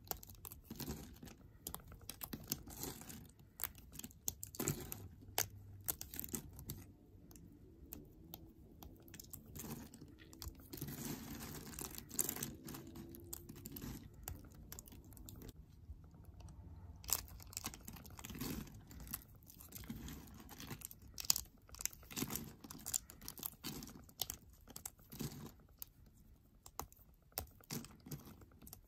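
Fingers crushing and snapping thin, crunchy flakes of shaved green soap, a dense, irregular run of small crisp crackles and snaps.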